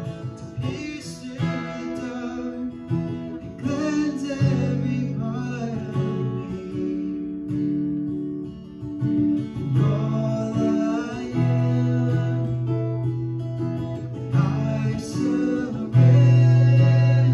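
A steel-string acoustic guitar strums chords under a man singing a slow worship song. The strumming gets louder near the end.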